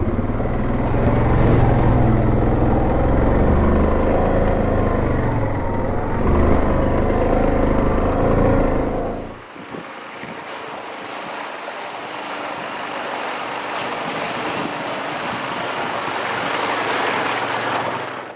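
Yamaha Grizzly 700 ATV engine running steadily under load. About halfway through it gives way abruptly to a steady rushing hiss.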